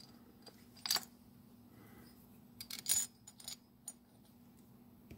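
Faint, light metallic clicks and taps, one about a second in and a cluster around three seconds in: drag washers being dropped and pressed into the spool of a Penn Spinfisher 704Z spinning reel.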